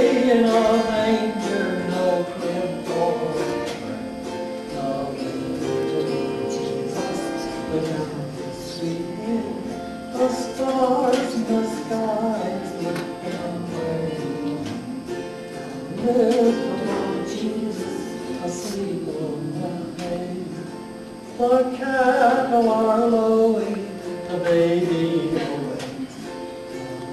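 A man singing a song solo into a microphone, in long held phrases, with instrumental accompaniment.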